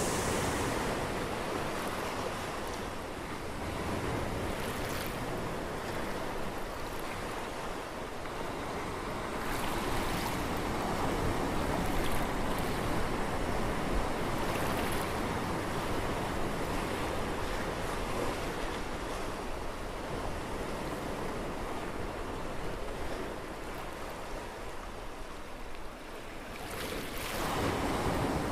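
Ocean water rushing in a steady wash, swelling a little in the middle and dipping briefly before rising again near the end.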